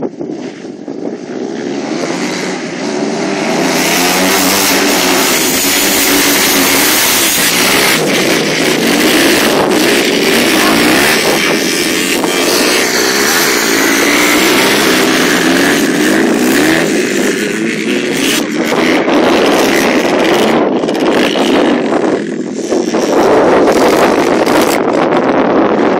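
Motocross bike engine revving up and down as the bike rides, building over the first few seconds and then staying loud.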